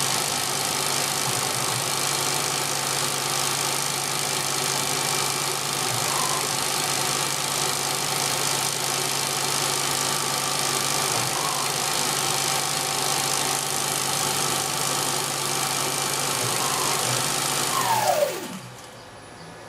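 Small CNC lathe spindle motor running steadily at speed with a constant whine, then winding down with a falling whine about 18 seconds in as the spindle stops so its speed can drop to zero before the turret's tool change.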